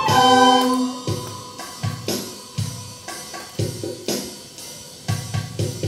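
A recorder ensemble holds a chord that ends about a second in. A drum beat follows, with hits roughly every half second.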